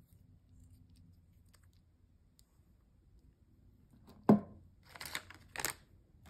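A rubber figural bag clip set down on a tabletop with a single sharp knock about four seconds in, followed by two short crinkles of a foil blind bag being moved.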